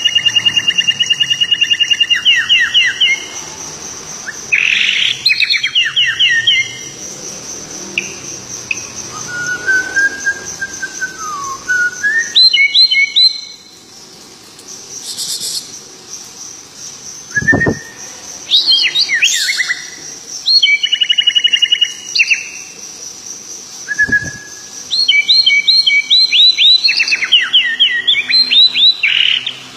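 A bird singing in bursts of rapid, repeated chirping phrases a second or two long, with short pauses between. A thin, steady high-pitched tone runs behind it, and twice there is a brief, steeply falling swoop.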